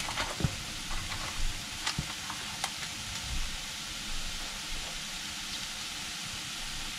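Chopped asparagus with onion and tomato sizzling steadily in a frying pan, with a few light clicks in the first few seconds.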